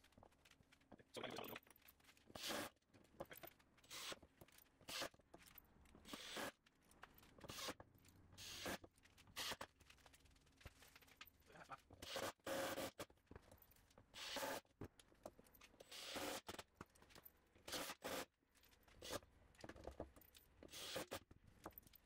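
Faint, repeated short bursts of a cordless drill-driver running screws through hairpin-leg mounting plates into the wooden underside of a tabletop, with brief pauses between screws.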